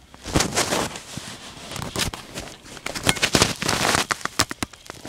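Handling noise: rustling and many sharp irregular clicks as the camera is moved about over the iPad.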